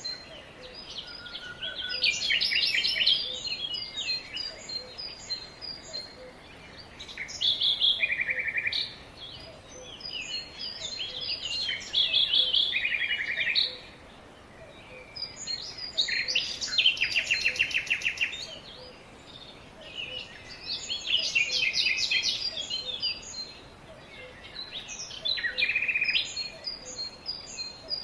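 Several small songbirds chirping and singing, with repeated short high chirps and bursts of fast trilled song every few seconds.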